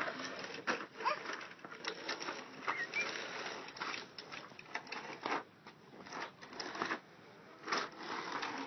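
Plastic toy front loader pushed over concrete, its wheels and body rattling and scraping with uneven clicks.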